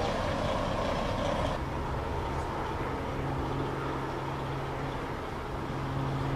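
A steady rushing noise cuts off about a second and a half in and gives way to the steady low hum of an idling fire engine.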